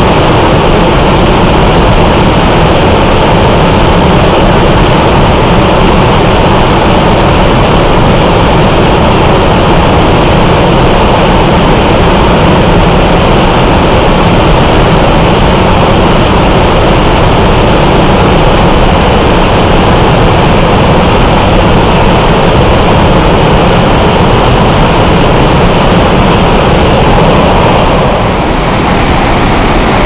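Waterfall crashing into a plunge pool: a loud, steady rush of water. About two seconds before the end it gives way to a slightly softer, thinner rush from a smaller cascade running over rocks.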